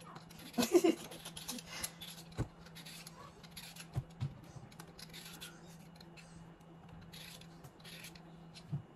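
Potato being peeled with a handheld vegetable peeler: irregular short scraping strokes with a few light knocks, the loudest cluster about a second in. A faint steady low hum runs underneath.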